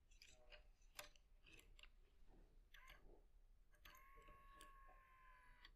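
Faint clicks and handling noises of a tennis stringing machine's clamp and string being worked by hand. About four seconds in, a faint steady squeal lasts nearly two seconds.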